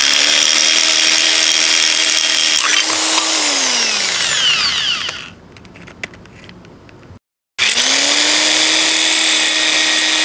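Electric drill running at full speed, its bit boring into a small plastic pocket pencil sharpener. About three seconds in the trigger is let go and the motor winds down, falling in pitch; after a short quieter pause with a click, the drill starts up again and runs steadily.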